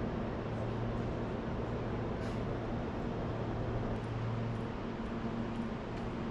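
City street ambience: a steady low mechanical hum over constant background noise, with one faint high squeak about two seconds in.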